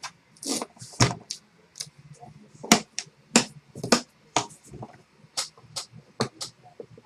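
Trading-card packaging and cards being handled as a box is opened: a string of short, irregular snaps, clicks and rustles, about one every half second.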